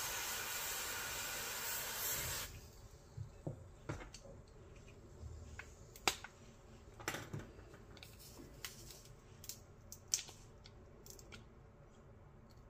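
Aerosol spray can hissing through a straw nozzle for about two and a half seconds, then stopping. After it come scattered small clicks and short scrapes as a thin metal pick and a screwdriver tip work at the speaker's plastic housing.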